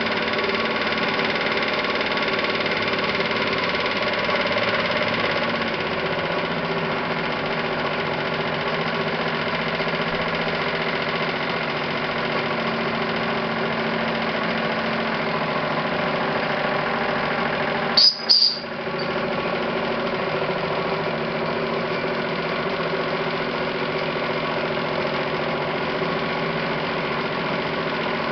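Meccano model steam donkey pump running under steam: a steady mechanical run of the engine, gearbox and chain drive. About two-thirds of the way through it is briefly broken by a click and a short high note.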